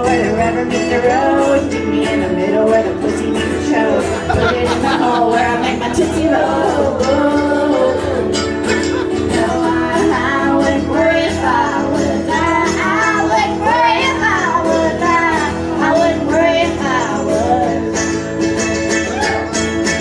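Live banjo and guitar music with a melody that bends and wavers in pitch over steady held chords.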